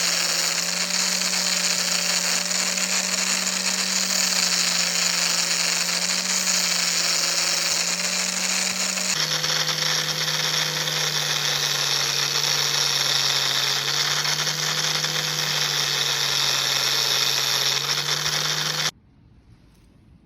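A power tool's electric motor running steadily with a hissing grind, its hum dropping slightly in pitch about nine seconds in; it cuts off abruptly near the end.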